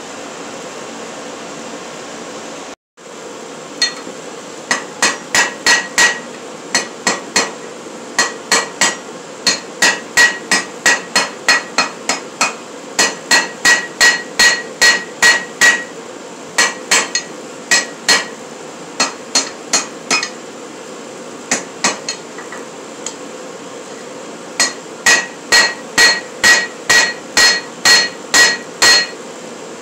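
Hand hammer striking a red-hot steel bar on an anvil, drawing it out by hand: sharp ringing blows at about three a second in runs with short pauses between them, over a steady background noise.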